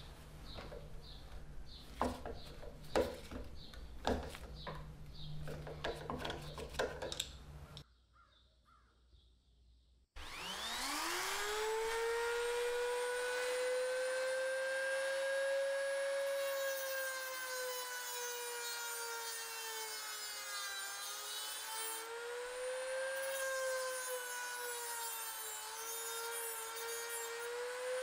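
A screwdriver bit clicking and scraping in a rusted screw for several seconds. After a short silence, a handheld rotary tool with a cut-off disc spins up with a rising whine and runs steadily, its pitch dipping a few times as the disc bites into the rusted steel plate around the screw.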